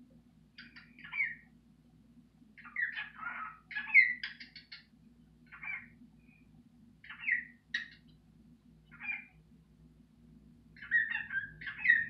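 Pet cockatiel calling in a series of short chirps and chatters, one every second or two, with a busier run of calls near the end.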